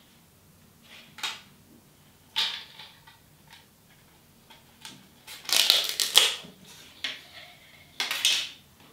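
Thin clear plastic topping compartment of a dessert cup being handled and tipped to pour chocolate pieces into the cup: crinkling and rattling in several short bursts, loudest just past halfway and again near the end.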